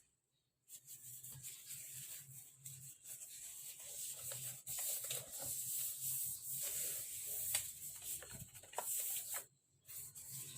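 Rustling and rubbing of packaging being handled and unwrapped by hand, with a few light clicks; it starts about a second in and stops briefly near the end.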